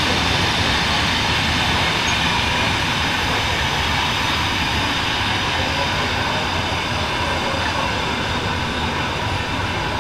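A train running along the track: a steady, even rumble of wheels on rails that holds at the same loudness throughout.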